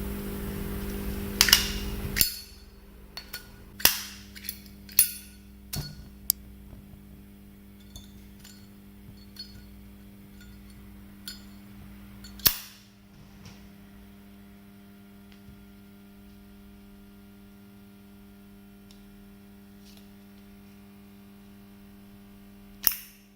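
Solid brass Zippo lighter being handled: a series of sharp metallic clicks and clacks as the hinged lid is flicked open and snapped shut, spaced irregularly, the loudest about midway and near the end. A steady low hum runs underneath.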